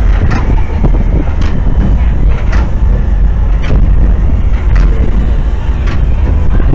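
Ride vehicle moving through a dark-ride scene: a loud, steady low rumble with a sharp click about once a second.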